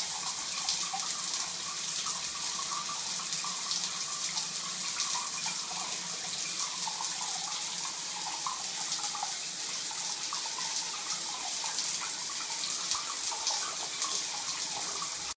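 Bathroom tap running in a steady stream into the basin, with small irregular splashes as a cat laps at the water with its tongue.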